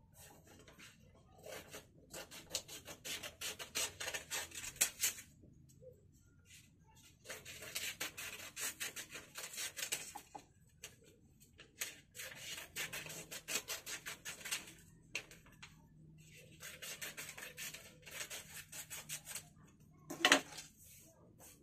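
Scissors cutting a sheet of paper: four runs of rapid snips with the paper crinkling, each a few seconds long, with short pauses between. Near the end, a single sharp knock as the scissors are put down on the desk.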